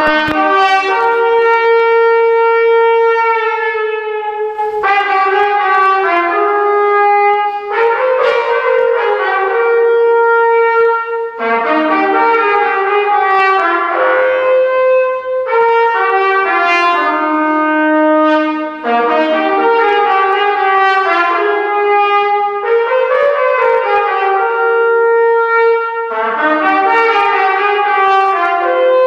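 Solo trumpet playing a melody, the notes moving in phrases of about three to four seconds with short breaths between them.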